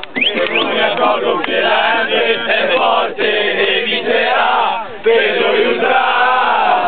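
A group of male ultras chanting and singing a fan chant together in unison inside a coach bus, loud and continuous, dipping briefly about five seconds in.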